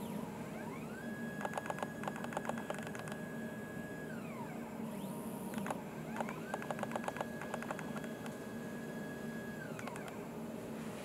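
Stepper motor under a 3D-printed turntable, driven by a DRV8825 driver, making two rotation moves. Each move is a whine that rises in pitch as the motor speeds up, holds steady for about three seconds with rapid clicking over it, then falls as it slows to a stop.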